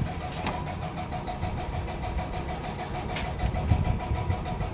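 A car engine idling steadily, with a few light clicks over it.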